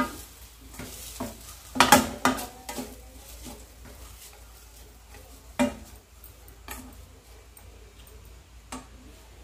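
A steel spoon stirring sautéed onions and drumstick leaves in a stainless steel kadai, with scattered clinks and scrapes of metal on metal; the loudest cluster comes about two seconds in.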